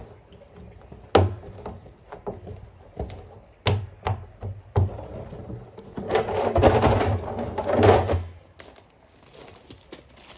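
Hollow knocks and thumps from handling empty blue plastic drum barrels while rubber Uniseals are pushed into their side holes, with a loud knock about a second in and another near four seconds. A barrel is then stood back upright, giving about two seconds of scraping and rubbing.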